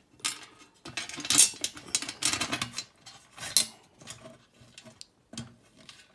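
Irregular metal clinks and clatter as the typewriter table's metal shelf is lined up against the frame and its small screw hardware is handled, with the loudest clatters in the first half.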